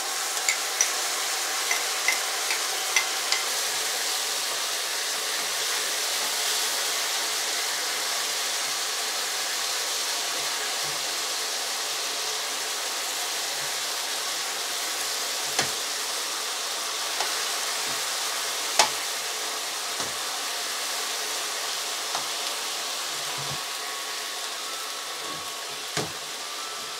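Salmon and scallions sizzling steadily in teriyaki sauce in a nonstick wok over low heat, with small crackling pops in the first few seconds. A few sharp clicks come from metal tongs against the pan as the fish is turned.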